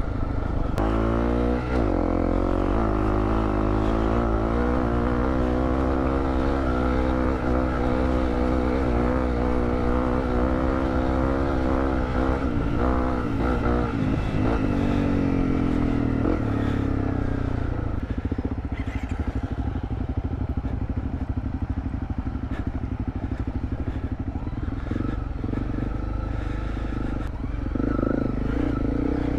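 Honda CRF250L's single-cylinder four-stroke engine revving up about a second in, then pulling steadily along the trail. Its pitch falls partway through as the throttle eases, and it runs rougher after that.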